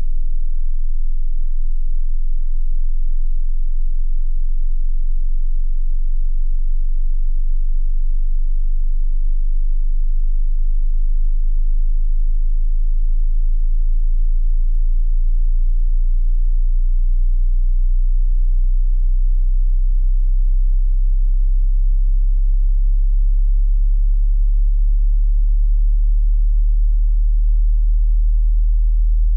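Hearing-test tone: a single very low-pitched pure tone, held steady and unbroken, growing slightly louder over the stretch.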